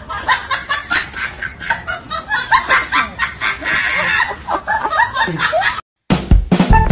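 A husky whining and yelping in quick, choppy, pitch-bending cries. The cries cut off suddenly near the end.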